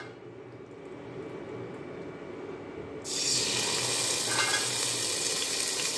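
Marinated chicken laid into hot oil in a steel pot, sizzling that starts suddenly about halfway through as a steady hiss.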